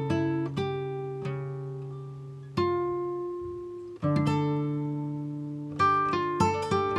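Background music on a plucked string instrument: notes and chords struck and left to ring out, slowly at first, then quicker notes near the end.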